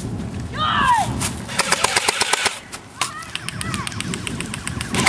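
Airsoft guns firing rapid bursts of shots, two runs of quick sharp cracks at roughly ten a second.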